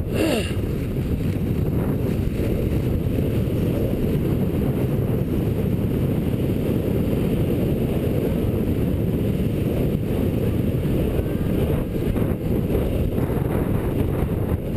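Steady rumbling wind noise on a body-worn camera's microphone as a cross-country skier glides fast along the track, mixed with the skis running in the grooves. A short, sharper sound comes right at the start.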